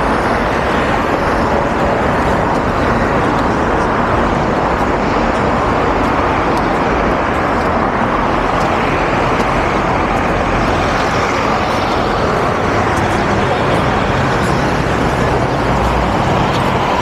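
Steady city street noise: car traffic running along a busy avenue, with voices of passers-by mixed in.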